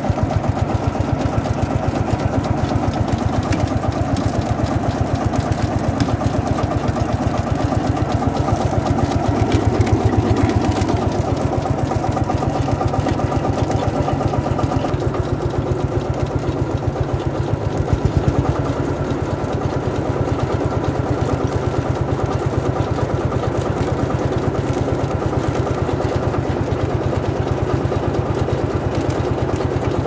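Lanz Bulldog D 3606 single-cylinder two-stroke hot-bulb tractor engine running steadily with a fast, even beat while it drives a cable winch hauling a log. It goes slightly quieter after about 18 seconds.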